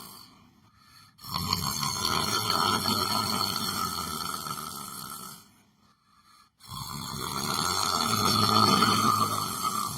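A person asleep, snoring: two long snoring breaths of about four seconds each, with a short pause between them about six seconds in.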